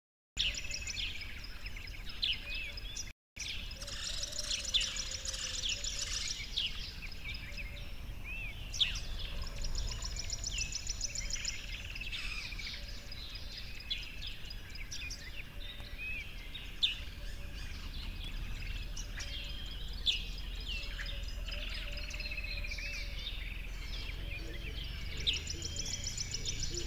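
Several songbirds chirping and trilling in a nature soundscape over a low steady rumble, with a brief dropout about three seconds in.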